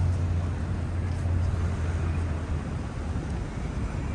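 City street traffic noise, with the low, steady rumble of a vehicle engine that eases off about two and a half seconds in.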